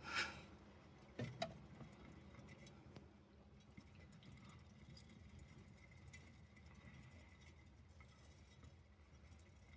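Near silence, broken by a short rustle at the start and two small sharp knocks about a second in, then faint scattered ticks.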